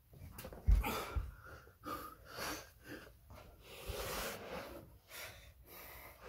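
A man breathing hard through ab exercises, a run of forceful breaths in and out. A dull thump about a second in is the loudest sound, with lighter knocks later.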